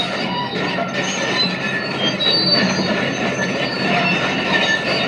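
CASE CX330 tracked excavator travelling, its steel tracks squealing and clanking over the steady running of the diesel engine. Short high squeals come again and again.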